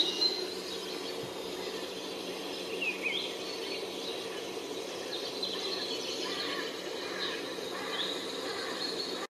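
Small birds chirping, with short rising and falling calls scattered throughout, over a steady background of outdoor noise. It all stops suddenly at the end.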